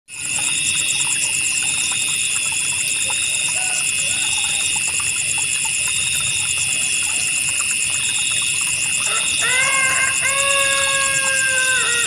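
Night insect chorus of crickets and other insects: several steady high trills, one pulsing rapidly and one chirping in bursts about every second and a half, over a low hiss of flowing water. About nine seconds in, a held, slightly falling call with several harmonics joins for a couple of seconds.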